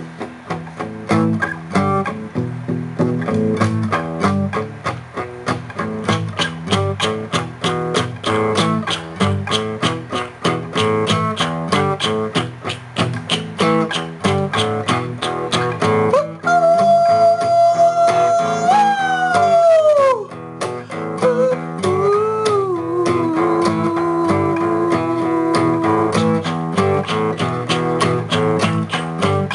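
Instrumental guitar music: guitar picked in a quick, even rhythm over bass notes. About halfway through, a long held lead note bends downward and fades, followed by another bending lead line.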